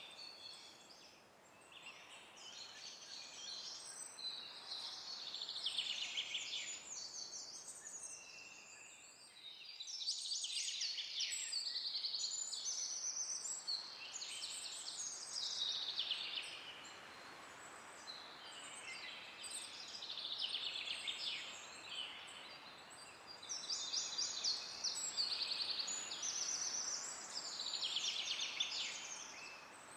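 Songbirds singing many short trilling phrases, one every couple of seconds, over a soft steady hiss of wind in the trees.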